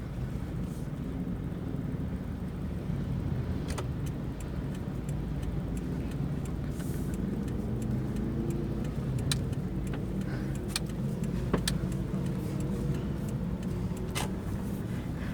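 Cabin sound of a 2011 Toyota Fortuner's 2KD-FTV 2.5-litre four-cylinder turbodiesel running steadily on the move, with road noise underneath. A few sharp clicks or rattles come through at intervals.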